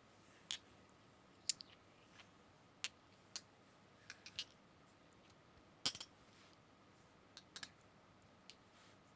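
ASMR tapping: about a dozen light, sharp taps and clicks at an irregular pace, with the loudest cluster about six seconds in.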